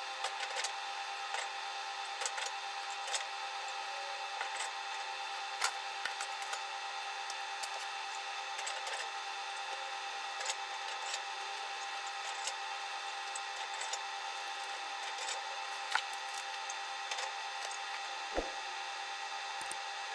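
Steady electrical hum with several fixed tones, with scattered faint clicks and taps of small objects being handled.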